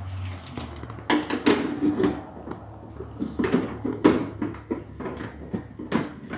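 Steel side panel of a desktop computer case being fitted back on: a string of knocks, scrapes and rattles of sheet metal.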